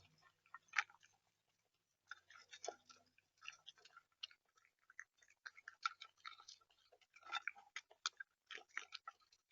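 A bird pecking and cracking seeds in a feeder tray: irregular, quiet clicks and crunches in clusters, with a pause of about a second near the start.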